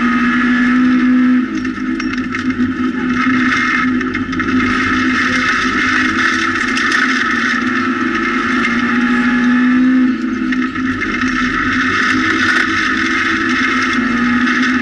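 Rally car engine running at high revs, heard from inside the cabin, with tyre and gravel noise from the road. The engine note holds high and briefly dips about a second and a half in and again about ten seconds in.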